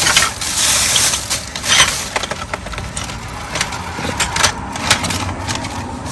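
Rummaging through discarded items in a dumpster: dense rustling and shifting for the first couple of seconds, then scattered sharp knocks and clicks as objects are moved and bump together.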